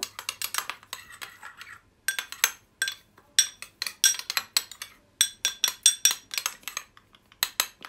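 Metal spoon stirring psyllium seeds and hot water in a glass bowl, clinking against the sides in quick runs of taps with short pauses between.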